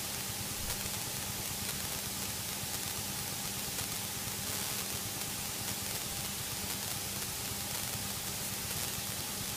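Steady hiss of an aircraft headset intercom, with the low, even hum of a Cessna's piston engine idling underneath.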